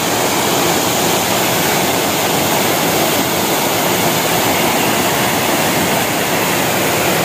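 Loud, steady rush of white water from a twin waterfall, two streams plunging into a rock pool and cascading over a rock ledge below.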